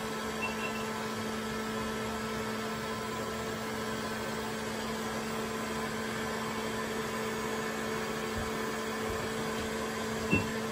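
Electric heat gun running steadily: an even whir of blown air over a low motor hum, which stops at the very end. A faint short camera beep sounds about half a second in, and another near the end.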